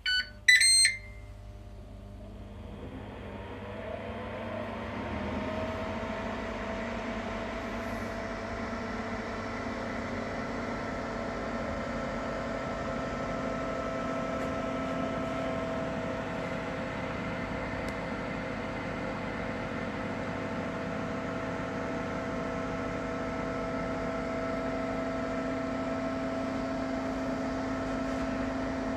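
Ninja Foodi 8-in-1 multicooker starting from cold: two short electronic beeps, then its fan spins up over a few seconds and settles into a steady whirring hum with a steady whine over it.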